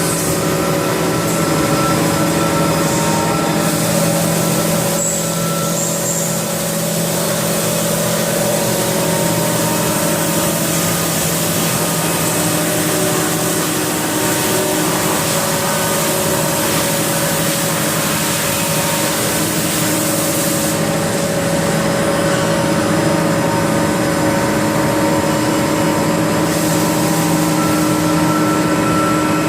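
Haas VF-4SS CNC vertical machining center running: a steady mechanical hum with several held tones under a broad hiss, the hiss changing in strength a few times.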